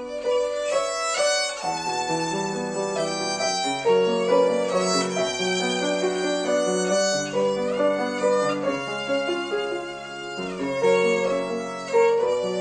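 Solo violin with piano accompaniment; for much of the passage the violin is plucked pizzicato, its bow held away from the strings, and near the end it is bowed again.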